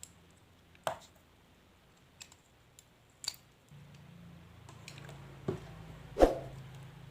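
Sharp clicks and small knocks of tools on a circuit board as a transistor is pulled from a broken compact fluorescent lamp's ballast board, the loudest about six seconds in. A low steady hum comes in about halfway.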